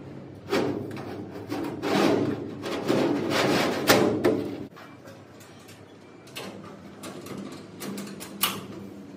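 Metal shelf plate scraping and clanking as it is slid into place inside a metal locker cabinet, with several knocks over about four seconds. Then a few light clicks and one sharp click near the end as the locker door is fitted back on.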